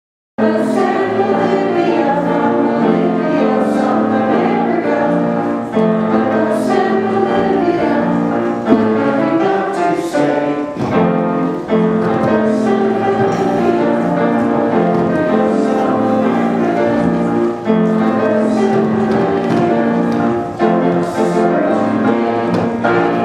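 A choir singing, starting about half a second in.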